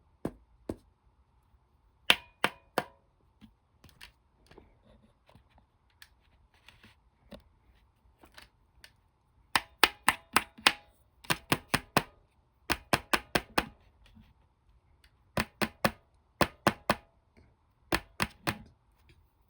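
Quick clusters of sharp light taps or clicks, three to five at a time, repeated several times, over a faint steady hum.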